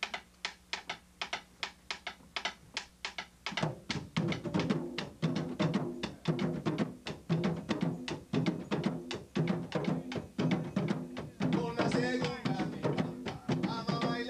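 Live Afro-Caribbean drum ensemble: sticks clacking an even rhythm on a wooden barrel, about five strokes a second. About three and a half seconds in, hand-played barrel drums join with deep tones, and a voice comes in near the end.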